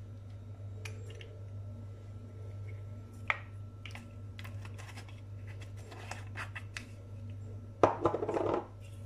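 Small spice jar handled over a plastic mixing bowl: scattered light taps and clicks as curry powder is shaken out, then a short clatter near the end as the jar is set back down among the other jars. A steady low hum runs underneath.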